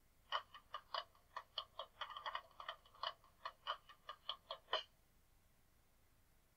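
A quick run of short, clipped musical notes, about four or five a second, stopping about five seconds in: an instrument sample from a textbook listening exercise, heard faintly through a computer speaker.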